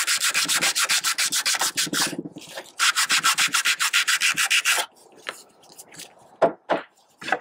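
Fiberglass gutter end cap being hand-sanded with a sheet of sandpaper, scuffing the surface that will take the gutter glue: rapid back-and-forth scratching strokes in two spells with a short pause about two seconds in. The sanding stops a little before five seconds in, followed by a few light knocks.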